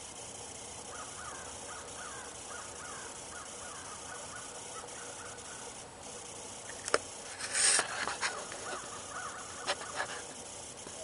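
Birds calling outdoors in strings of short calls, over a steady background hiss. About seven seconds in there are a few sharp clicks and a brief louder burst of rustling noise, the loudest thing here.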